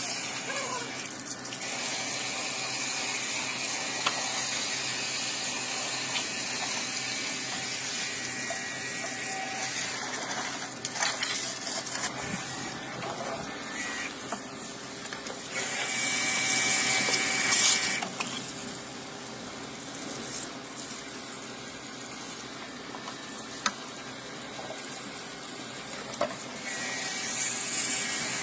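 Water running and splashing steadily, louder for about two seconds past the middle, with a few light clicks.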